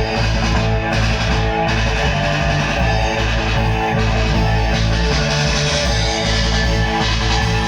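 Music led by guitar, playing continuously at a steady level.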